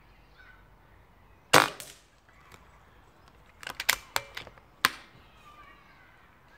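Webley Mastiff .22 air rifle firing one sharp shot about a second and a half in, with a smaller crack right after it. A couple of seconds later come a quick cluster of sharp clicks and one last single click.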